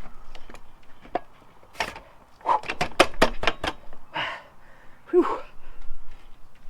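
Metal parts knocking and clicking as a motorcycle rear wheel, spindle and brake caliper are worked into place by hand, with a quick run of about eight sharp clicks past the middle. Heavy breaths and a short grunt of effort are heard between them.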